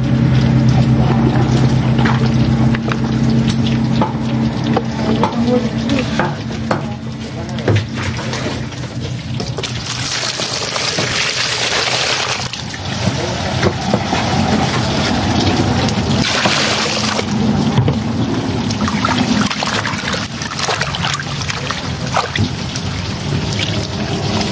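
Water pouring into a plastic bucket full of cut eels, in two loud gushes about ten and sixteen seconds in, between wet splashing and sloshing as hands rinse and handle the eels in the water. A low steady hum fills the first few seconds.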